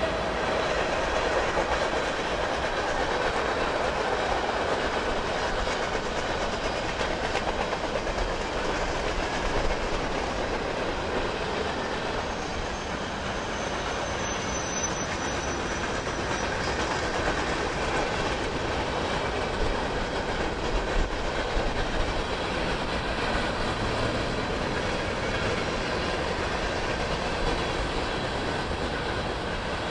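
Union Pacific frac sand freight train rolling past: its diesel locomotives go by at the start, then a long string of covered hopper cars. The wheels make a steady clickety-clack over the rail joints.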